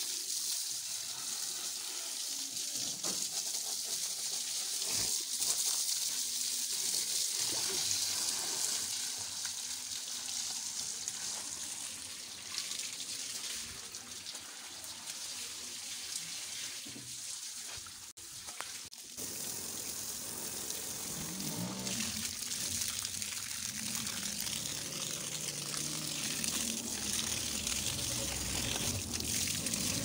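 Water from a garden hose spraying onto a backhoe loader's tyres and bodywork: a steady hiss of spray and splashing that breaks off briefly a little past halfway.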